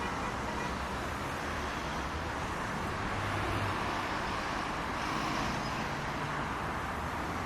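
Steady city road traffic: cars running past with an even noise of engines and tyres over a low rumble, swelling a little in the middle as a vehicle goes by.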